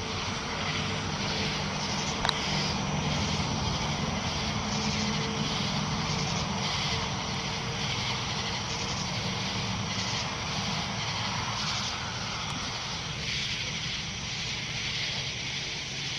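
A distant motor vehicle's engine droning, strongest in the first half and fading away over the next several seconds. A rhythmic high-pitched pulsing chorus runs underneath, with one sharp click about two seconds in.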